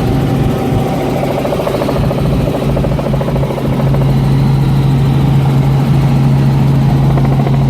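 Helicopter running steadily with a strong even hum and a fast rotor flutter. It grows a little louder about four seconds in.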